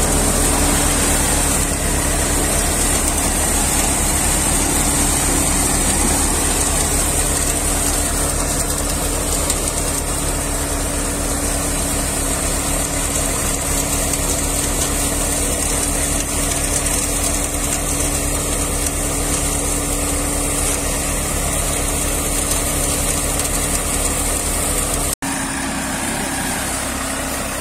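Tractor-driven multi-crop thresher running while threshing paddy: the tractor's diesel engine and the thresher's drum and blower make a steady, even drone. A split-second gap near the end, where the recording cuts, is followed by the same kind of drone.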